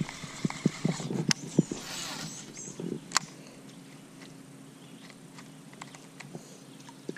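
A quick run of light knocks and clicks, then a short rush of noise about two seconds in and one more sharp click a second later. Only faint scattered ticks follow.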